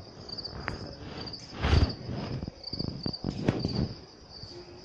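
Crickets chirping steadily in a rapid, pulsing trill. A loud rustle about two seconds in and a few sharp knocks sound over it.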